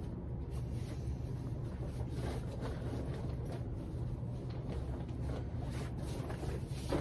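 A steady low hum, with faint scattered clicks and scrapes of a puppy gnawing a marrowbone.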